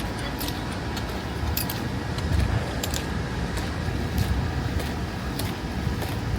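City street ambience: a steady low rumble of road traffic, swelling briefly twice, with light high-pitched clicks or jingles scattered throughout.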